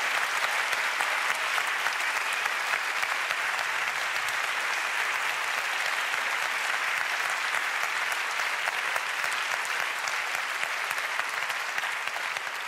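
Theatre audience applauding steadily, dense clapping from a large crowd welcoming a performer on stage.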